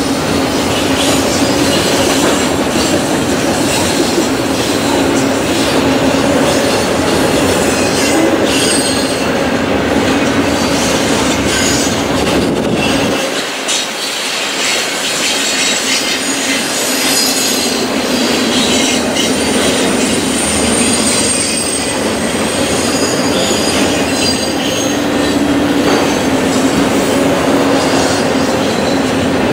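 Double-stack intermodal well cars of a long freight train rolling past close by: a steady rolling rumble with clicks from the wheels and high squealing tones. The low rumble briefly drops away about halfway through.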